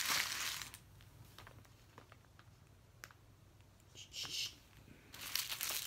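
Small plastic zip bags of diamond-painting drills crinkling as they are handled, at the start and again near the end, with a short rustle about four seconds in and a few faint clicks in the quieter stretch between.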